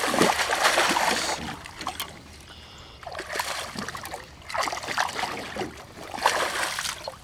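A hooked bass splashing at the surface beside a boat. There is heavy splashing through the first second or so, a quieter stretch, then more splashing about five and six and a half seconds in.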